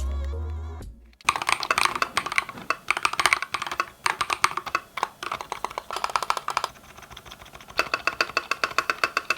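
Fast typing on a Cidoo ABM648 custom mechanical keyboard: rapid keystroke clacks that start about a second in, as a musical tone fades out, and ease off briefly past the middle.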